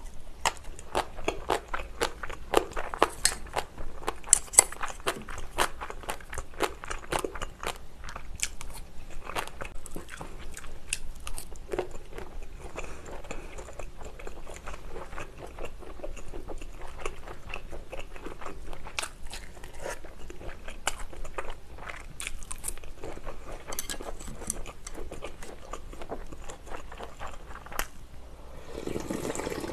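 Close-miked chewing and biting of home-style Korean side dishes: a steady run of crunchy, moist clicks from the mouth. Near the end, a drink is sipped from a bowl.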